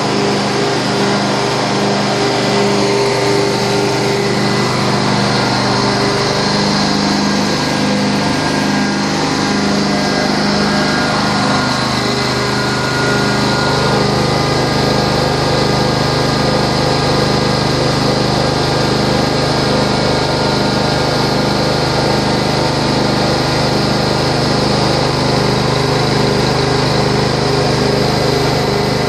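Carpet-cleaning machinery running steadily and loudly, with a faint regular pulse. At first it is a rotary extraction tool working the carpet on its vacuum hose; partway through the sound changes to the Prochem Legend SE truckmount itself, its 22 hp engine and Sutorbilt vacuum blower running.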